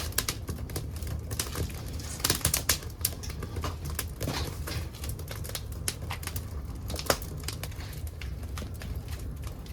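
Wood fire crackling in a secondary-combustion wood gas stove, with dry old furniture wood giving off irregular sharp pops and snaps over a low steady rumble of the burning.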